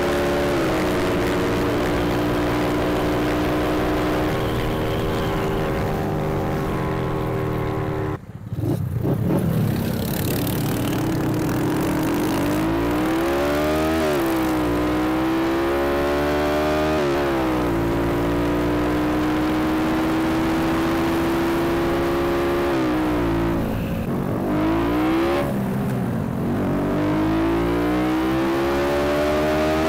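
Small motorcycle engine running under way at speed, mostly at a steady pitch. Its revs dip and climb again several times, and its sound cuts out briefly about eight seconds in. Rushing wind noise runs along with it.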